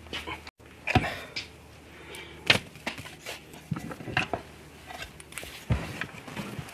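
Cast-aluminium Honda Prelude transmission case being handled and turned over on a towel-covered workbench: a series of sharp knocks and clunks, the loudest about a second in and again about two and a half seconds in, with rubbing and rustling between.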